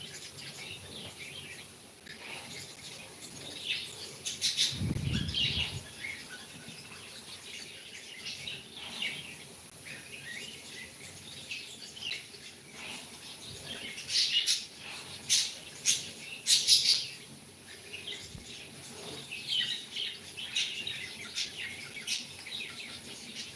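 Small pet parrots chirping and calling in short, scattered bursts, with a few louder clusters in the second half. About five seconds in there is a brief low rustle.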